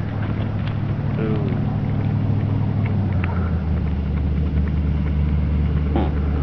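A vehicle engine idling with a steady low hum, and a few faint clicks over it.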